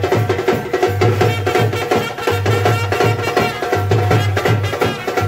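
Live brass band with drums playing a lively folk-style tune, the low drum beating a repeating figure about every second and a half.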